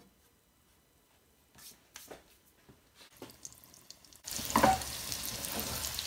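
Shengjian bao (pan-fried pork buns) frying in hot oil in a frying pan: after a few faint taps, a steady sizzle starts suddenly about four seconds in.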